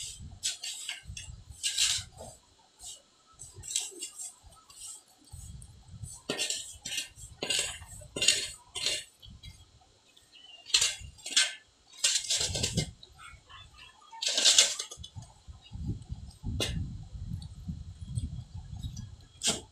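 A metal hand tool scraping and clinking against concrete and wet cement mortar in short, irregular strokes, with low dull knocks and rumble in between.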